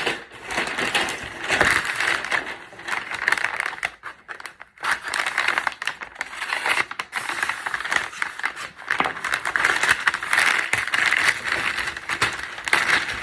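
Paper wrapping crinkling and rustling as a wooden axe handle is unwrapped by hand, with a short lull about four seconds in.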